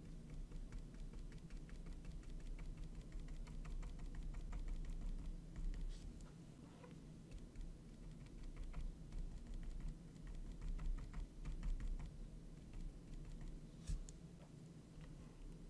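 Paintbrush bristles dabbing and scratching on a small textured canvas in quick, faint taps, with one sharper click near the end.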